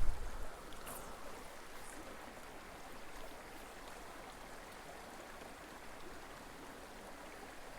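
Small boulder-strewn mountain creek running, a steady rush of water.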